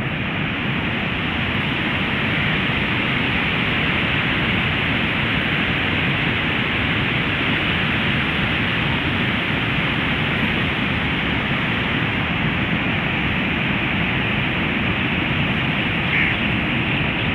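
Steady, loud rush of the flooded Ravi River's fast, turbulent water.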